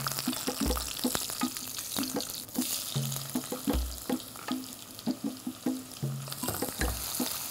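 Ginger and garlic sizzling in hot oil and ghee while a wooden spoon stirs and knocks in the pot, over background music with a repeating bass line. Near the end sliced onions are slid off a wooden board into the pot and the sizzling grows louder.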